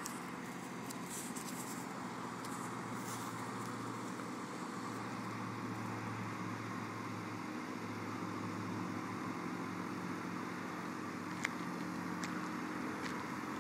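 Small blue tractor's engine running steadily, an even low hum with a couple of light clicks near the end.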